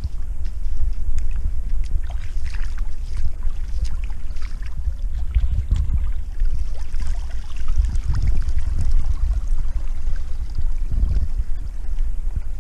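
Footsteps squelching and crunching through wet slush, irregular short steps, over a steady low rumble on the microphone.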